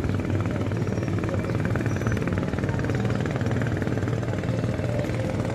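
A small engine running steadily, giving a low hum with a rapid, even pulsing.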